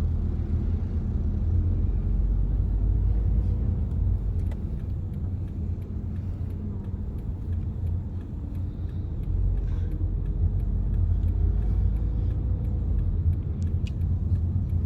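Car interior noise while driving: a steady, low-pitched hum of engine and tyres on the road, heard inside the cabin.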